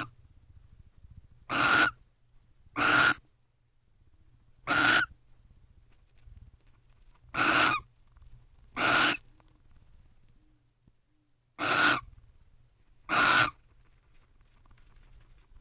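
Barn owl calling: seven short, harsh calls of about half a second each, repeated every one and a half to two and a half seconds, several in close pairs.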